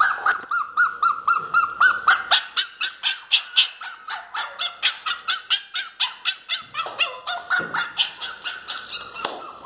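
Miniature pinscher crying: a fast, steady run of high-pitched yelping whines, about four a second, easing slightly near the end. It is the distress crying of a dog shut outside and wanting to be let in.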